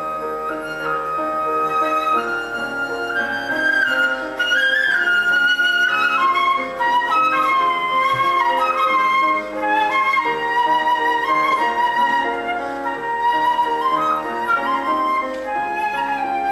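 Instrumental music: a flute plays a slow, held melody over sustained chord accompaniment.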